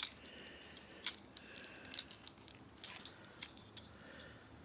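Plastic joints and parts of a Transformers action figure clicking as it is twisted and handled during transformation, with a few sharp clicks and soft handling noise between them.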